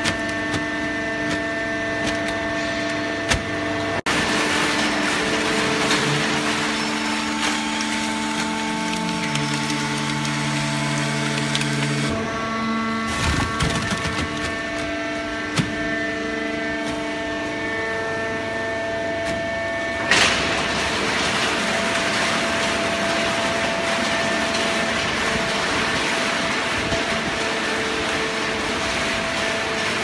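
Fully automatic horizontal hydraulic baling press for waste cardboard running: a steady mechanical hum with several held tones over a noisy rush, shifting abruptly a few times.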